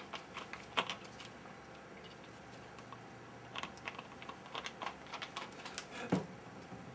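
Scattered light clicks and taps of small tools and parts being handled at a soldering bench, busiest in the second half.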